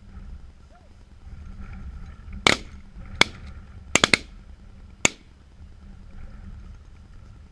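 Shotguns firing at geese flying overhead: six shots, two single shots about two and a half and three seconds in, then a quick run of three, then one more.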